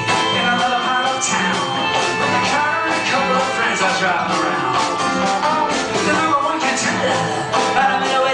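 Live rock band music: guitars, bass and drums with a steady beat.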